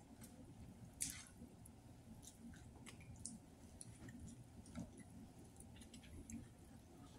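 Faint mouth-chewing of french fries, with scattered soft clicks and a brief crinkle of the paper fry tray about a second in.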